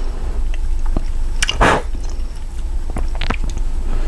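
Small clicks and two short metal scrapes from a tubular key cutting machine being worked by hand, the loudest scrape about a second and a half in, over a steady low hum.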